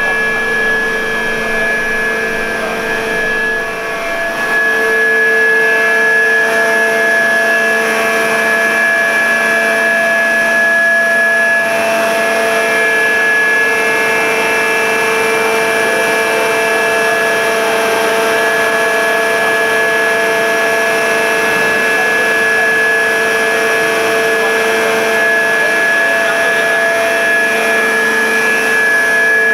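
Flood pumping station machinery running: a loud, steady drone with several steady whining tones over it. It grows louder about four seconds in, and more whine comes in near the middle.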